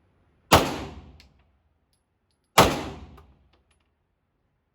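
Two gunshots from a firearm at a shooting range, about two seconds apart, each followed by a decaying echo.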